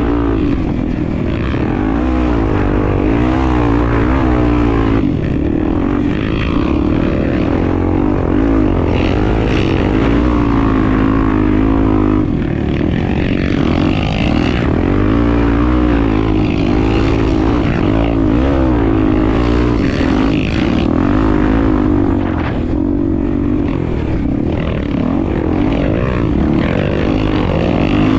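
Honda XR250 Tornado's single-cylinder four-stroke engine running as the motorcycle is ridden, its revs rising and falling continuously with throttle and gear changes.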